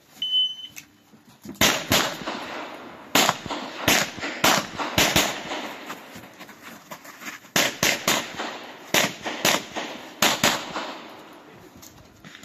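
Electronic shot timer's short high start beep, then a string of about fifteen or more pistol shots, mostly in quick pairs, with a pause of about a second and a half in the middle before the shooting resumes.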